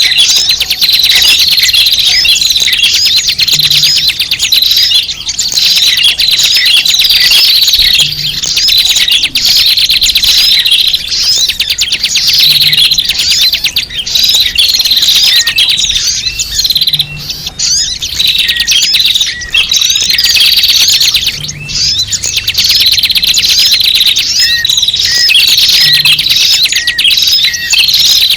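A dense, noisy chorus of small birds chirping and twittering without a break: a bird-lure (pikat) recording played to draw small birds in. The chatter seems to repeat in a loop about every four and a half seconds.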